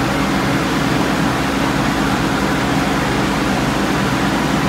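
Electric pedestal fan running steadily close by: an even airy noise with a low motor hum underneath.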